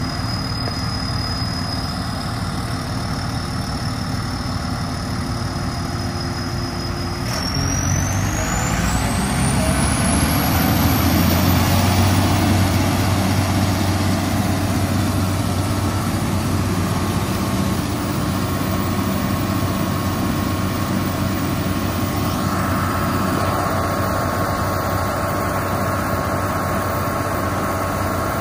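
Zoomlion ZTC700V truck crane's diesel engine running steadily, then speeding up about seven seconds in with a whine that rises sharply in pitch as the hydraulics raise and extend the boom. It then holds at the higher speed for the rest of the time.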